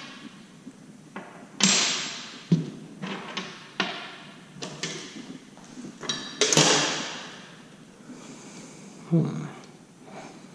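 Intermittent clinks, knocks and short scrapes of hand tools and steel screws being handled on a workbench, with about half a dozen louder knocks, while the oil-pan screws come off a small single-cylinder engine.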